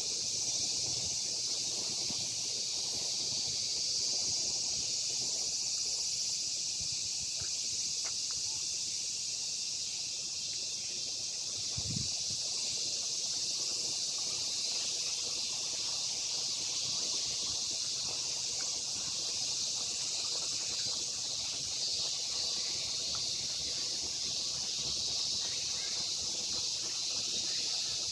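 A chorus of summer cicadas buzzing, a steady high-pitched drone that does not let up. A brief low thump about twelve seconds in.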